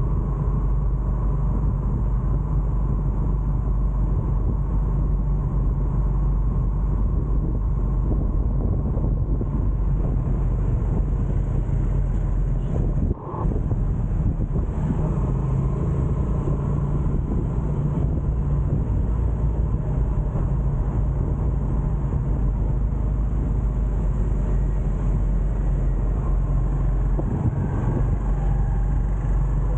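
Steady engine and road rumble from a vehicle moving through light city traffic, with a low, even hum underneath. The sound briefly drops out about 13 seconds in.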